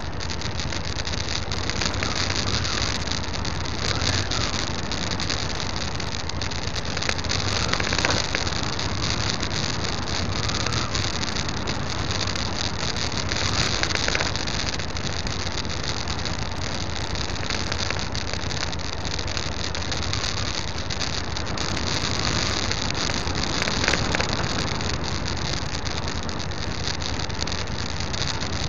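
Motorcycle riding along a loose gravel road: its engine runs steadily under a continuous hiss of tyres on gravel and wind noise.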